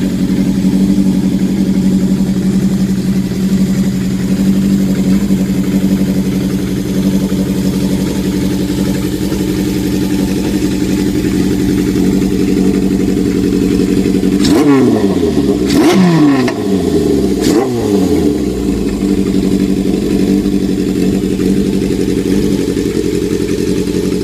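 1980 Suzuki GS750's air-cooled inline-four idling steadily through a four-into-one exhaust. About two-thirds of the way in, the throttle is blipped three times, about a second and a half apart, each rev rising and falling straight back to idle.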